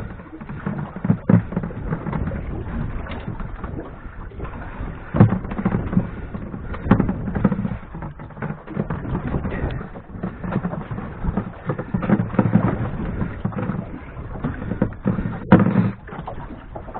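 Irregular knocks, clicks and low rumbling handling noise from a small fishing boat, with a sharp click near the end.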